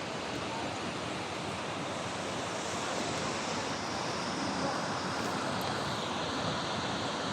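Steady rushing of the Rio Sousa's water flowing through the rocky gorge.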